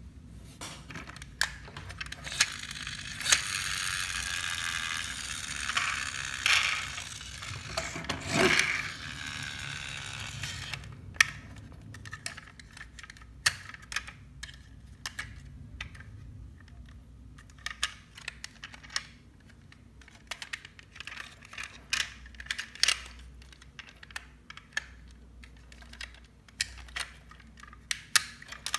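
Small plastic toy police truck: a steady mechanical whir for about seven seconds as it runs along the floor, then many sharp clicks and taps of plastic as its rear doors are opened and closed by hand.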